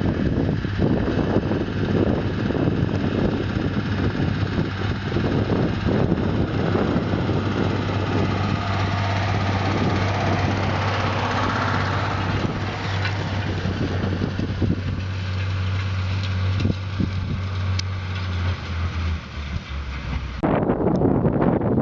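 A farm machine's diesel engine running steadily with a low drone under a broad rushing noise. The drone fades away, and near the end the sound cuts abruptly to wind noise on the microphone.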